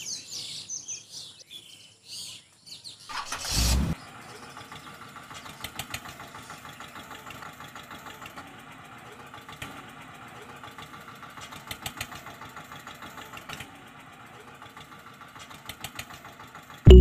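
Birds chirping for the first three seconds, then a short loud burst and a steady engine-like running noise with irregular ticks from a red toy tractor pulling a metal trolley over dirt.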